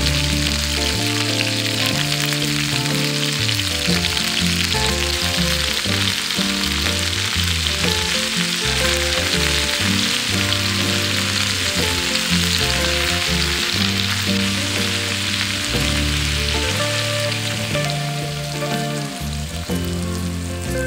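Food sizzling as it fries in hot oil in a pan, over background music; the sizzle dies down near the end.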